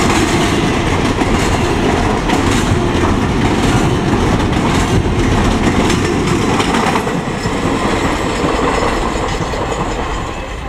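Freight train cars rolling past on the rails, their rumble and wheel clatter fading as the tail end goes by about seven seconds in.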